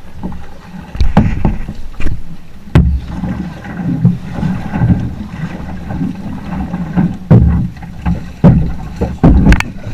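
Sounds from a canoe on the water: a low rumble with irregular sharp knocks and splashes, such as paddle strokes and a paddle striking the hull.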